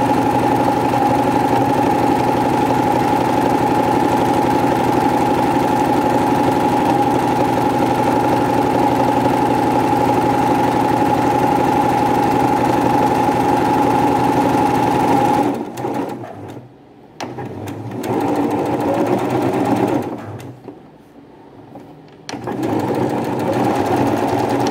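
Domestic electric sewing machine stitching a seam through fabric, running at a steady speed with a constant motor whine. About two-thirds of the way through it stops, runs briefly, stops again, then runs steadily once more near the end.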